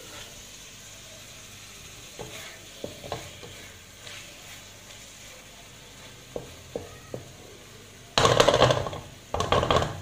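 Onions and tomatoes frying with a quiet sizzle in a kadhai as a spatula stirs them, giving a few light scrapes and taps. Near the end come two loud bursts of the spatula scraping and stirring hard against the pan.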